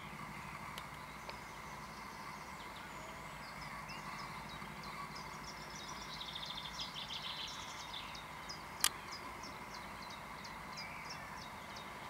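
A small songbird singing outdoors: scattered phrases, a quick dense trill, then a run of short repeated notes, about four a second. Beneath it runs a steady low background hum, and one sharp click stands out a little before the end.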